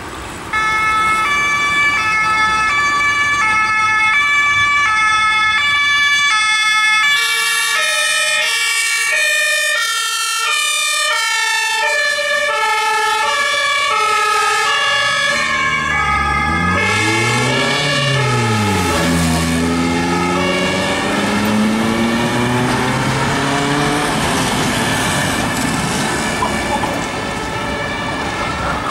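German two-tone emergency siren on a Mercedes-Benz Vito emergency doctor car: the electronic two-tone and the pneumatic Martin air horns sound together, alternating between a high and a low note. It starts abruptly about half a second in and keeps going.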